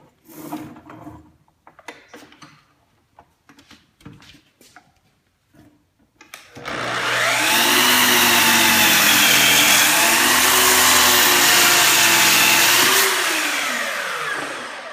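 Miter saw switched on about six and a half seconds in, running at full speed while cutting the angled end of a wooden stair tread, then winding down near the end. Before it, a few light clicks and knocks as the board is lined up.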